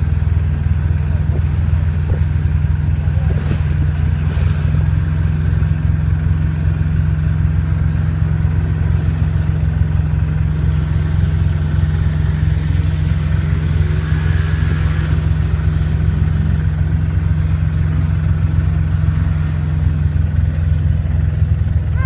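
Quad bike engine running steadily as it drives along, heard from on board the quad.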